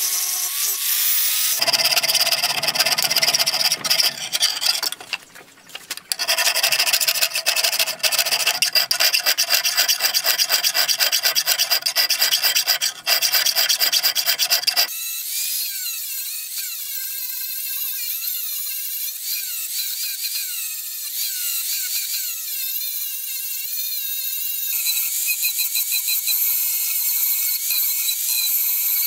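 A hand file rasping on the steel blade in fast, even strokes, with a short pause about five seconds in. About fifteen seconds in the filing stops and an angle grinder grinds the steel edge steadily, its whine wavering under load and growing louder near the end.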